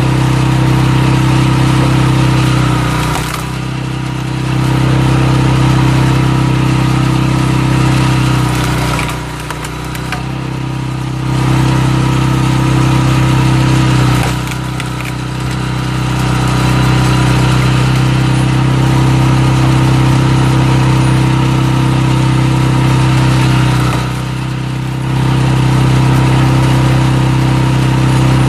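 Small engine of a walk-behind cultivator driving a screw-cone log splitter, running steadily. Four times, about three, nine, fourteen and twenty-four seconds in, it briefly drops in level and sags in pitch as the screw bites into oak and the engine comes under load.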